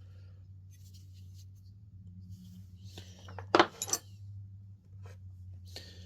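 Small metal hand tools clinking and knocking as they are handled and set down, with one sharper metallic clink about three and a half seconds in, over a low steady hum.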